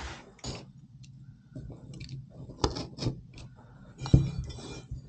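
Scattered knocks and clinks from handling boards and hand tools during wall-panel installation, the loudest knock about four seconds in, over a low steady hum.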